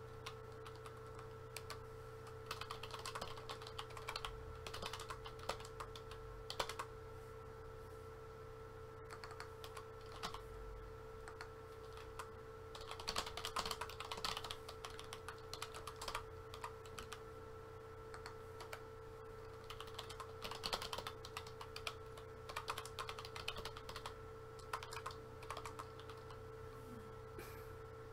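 Typing on a computer keyboard: several bursts of rapid keystrokes with pauses between them, over a faint steady hum.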